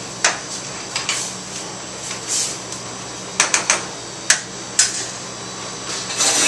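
Scattered sharp clinks and knocks of utensils and dishes being handled at a stove, with a quick run of three or four taps about halfway through, over the steady hum of a kitchen extractor hood.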